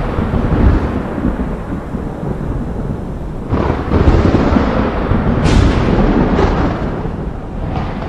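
Thunder rumbling continuously, with a new clap breaking in suddenly about three and a half seconds in and sharper cracks after it.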